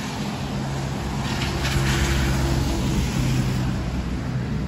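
Heavy rain falling in a thunderstorm, with a steady low mechanical hum, such as an engine, running under it for about three seconds.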